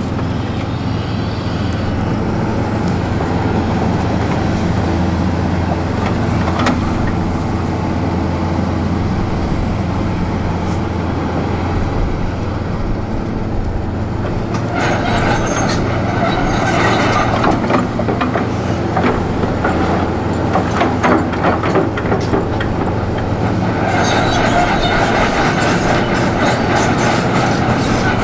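Hitachi 470 excavator's diesel engine running steadily under load. From about halfway on, concrete and debris crack and crunch irregularly as the demolition grapple tears into the building.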